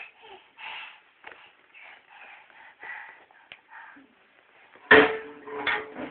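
Toddler's soft grunts and breathy vocal noises, then a drum of a small drum kit struck twice near the end, each hit ringing on for a moment.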